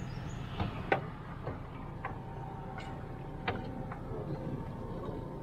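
A rope is hauled in hand over hand over the bow of an aluminium boat, with scattered sharp knocks and ticks against the hull and gear. A steady low rumble runs underneath, and a faint steady tone comes in through the middle.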